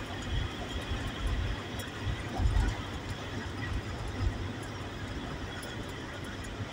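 Steady road and engine noise heard inside the cab of a large vehicle, a bus or truck, driving at speed. An uneven low rumble swells and fades several times.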